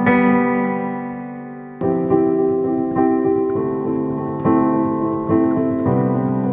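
Soft piano score: a held chord fades away, then about two seconds in new notes and chords start being struck gently, one every second or less.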